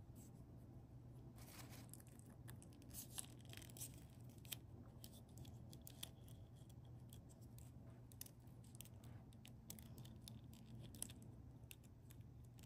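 Near silence: faint, scattered clicks and light rustling as fingers handle small plastic miniature flower stems and tiny glass bottles in a metal crate, over a low steady hum of room tone.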